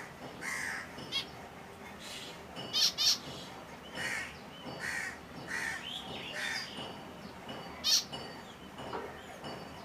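Finches calling: a run of short call notes, one every half second to a second, with a few sharper, louder chirps about three seconds in and again near eight seconds.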